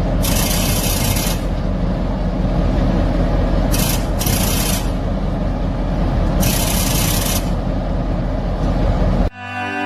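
Loud steady rumble of a train, with three bursts of hissing. It cuts off suddenly near the end, and slow cello music begins.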